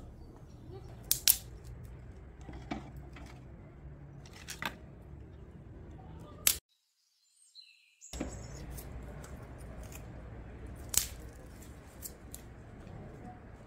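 Dry sticks snapping and clicking as kindling is broken. After a brief total silence just past the middle, a knife clicks and cuts against a board while an onion is peeled and sliced.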